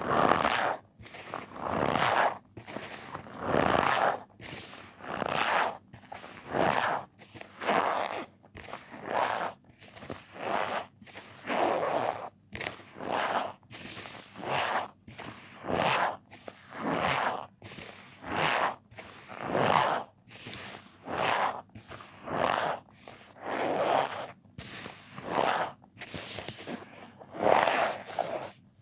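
Cornstarch powder being squeezed and pressed by hand over and over, each squeeze giving a short squeaky crunch, a little more than one a second.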